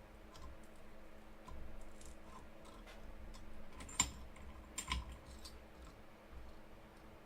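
Scattered light clicks and taps of small hard objects being handled, with one sharp click about four seconds in and a couple more just under a second later.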